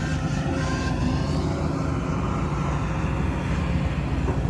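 Dump truck engine running steadily, a continuous low rumble.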